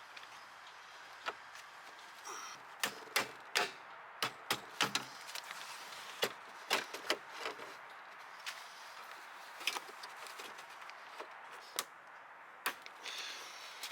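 Irregular sharp clicks and taps of tools and metal and plastic parts being handled inside a car door while a lock actuator is fitted, over a steady faint hiss.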